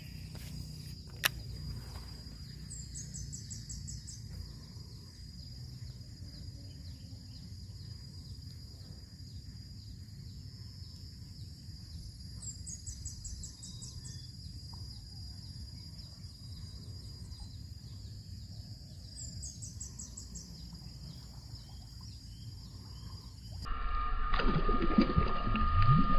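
Outdoor waterside ambience: a steady low rumble and a steady high insect drone, with a bird's short, quick descending trill heard three times. Near the end a louder noisy stretch begins.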